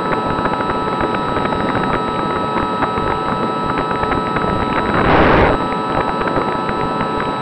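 Wind rushing over the onboard camera of an Easy Star 2 electric model plane in flight, over the steady whine of its pusher propeller motor. A stronger gust of wind noise comes about five seconds in.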